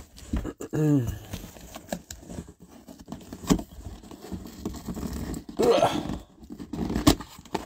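Cardboard box handled and opened by hand: scraping and rustling of the cardboard with a few sharp taps or knocks, one at the start, one in the middle and one near the end. There are brief muttered vocal sounds in between.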